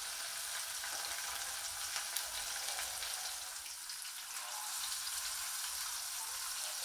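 Hot oil sizzling steadily around whole flour-dusted snapper shallow-frying in a pan, with fine crackles throughout.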